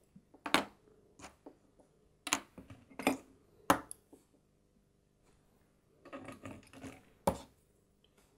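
Irregular small, sharp metallic clicks and taps of watchmaker's tweezers and screwdriver on a Waltham pocket watch movement as the crown wheel's securing screw is fitted. There is a scatter of single clicks, a small cluster of them about six seconds in, and a louder click just after.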